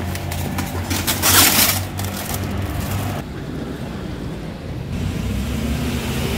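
Plastic bag of aubergines crinkling and rustling as it is set down on produce in a car boot, loudest about a second in, over a steady low engine hum.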